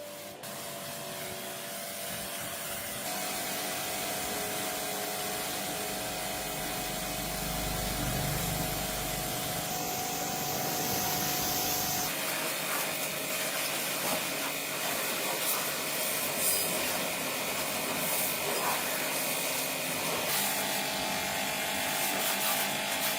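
Workshop tool noise: a power tool and rough scraping or sawing, in a few stretches that change abruptly about 3, 12 and 20 seconds in.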